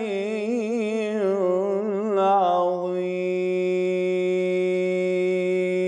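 A man's voice chanting the drawn-out end of a Quran recitation's closing formula: a wavering, ornamented melisma for about three seconds, then one long steady held note.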